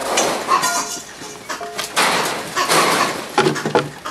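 A vervet monkey caught in a hand net giving short shrill screams, amid scuffling and scraping of the net and wooden transport box.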